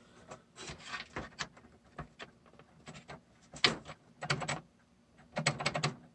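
Handling noise: irregular clicks, taps and knocks, in a few quick clusters in the second half.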